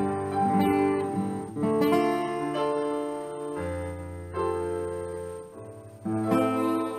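Instrumental medley of tunes on strummed acoustic guitar with keyboard accompaniment, chords changing every second or so. The sound dies away to a single low note, then a fresh strummed chord comes in about six seconds in.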